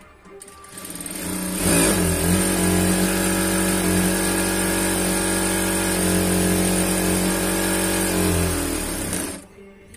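Jack industrial sewing machine running at high speed as it stitches and gathers a strip of striped fabric. It builds up over the first couple of seconds, runs steadily, then stops about nine seconds in.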